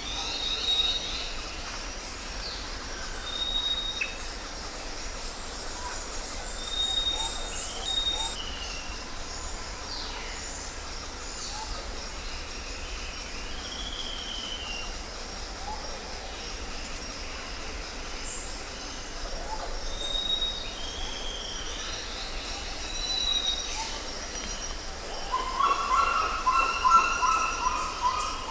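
Jungle ambience: a steady high insect drone under many different birds calling. Short whistled notes and rising and falling slurs come every few seconds, with a quick high trill. Near the end there is a louder, repeated lower call.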